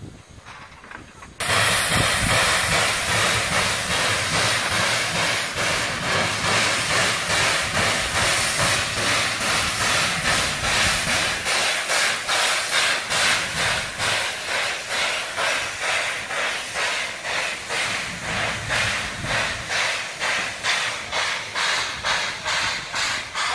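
Narrow-gauge steam tank locomotive starting off: a sudden loud hiss of steam from the open cylinder drain cocks about a second and a half in, then regular exhaust chuffs through the hiss that come quicker as the engine gets moving.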